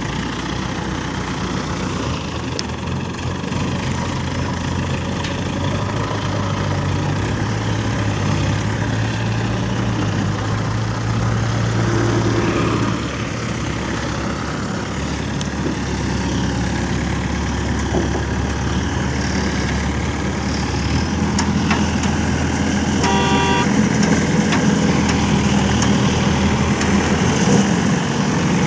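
Diesel engine of an ACE hydra pick-and-carry crane running steadily as it moves a dump trailer hanging on its hook. Its note shifts about halfway through and grows louder near the end, with a brief horn toot about 23 seconds in.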